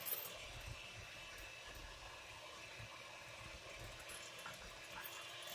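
Electric hand mixer running steadily, its beaters whipping egg whites into foam in a glass bowl.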